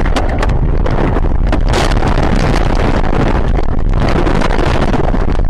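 A car running off the road and bouncing through snow and brush: loud rumbling noise with many knocks and scrapes against the body.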